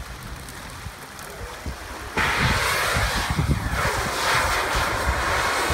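A carbide-fed acetylene torch on the bow of a sulfur-fire fishing boat bursts alight about two seconds in, then keeps up a loud, steady hiss.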